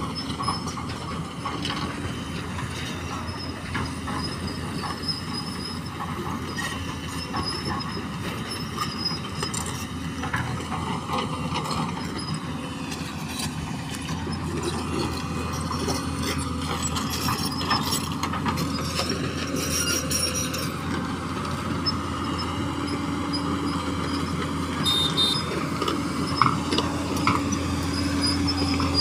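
Steady rumble of a moving vehicle, with faint high squeals now and then, growing slowly louder toward the end.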